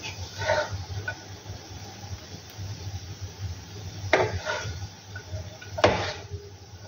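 Wooden spatula scraping sev around a non-stick pan while serving it onto a plate, with two sharp knocks about four and six seconds in. A steady low hum runs underneath.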